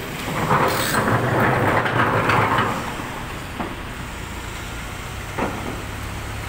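Crawler excavator's engine running steadily while its bucket works a pile of rocks: stones clatter and grind loudly for about two seconds near the start, then two single knocks of rock later on.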